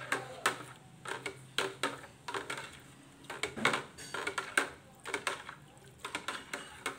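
A clear plastic scoop stirring fabric conditioner in a plastic bucket, knocking and scraping against the bucket's side in a run of irregular clicks and clacks.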